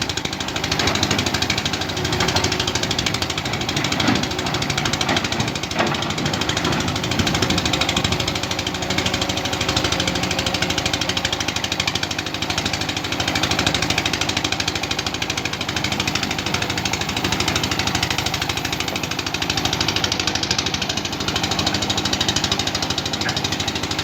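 Excavator's diesel engine running steadily under working load while digging, with a fast, even mechanical rhythm.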